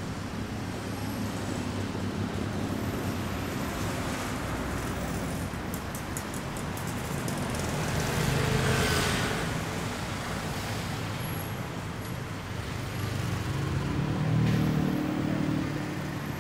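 Street traffic: a steady wash of engines and tyres, with a car passing close about halfway through and another vehicle swelling past near the end.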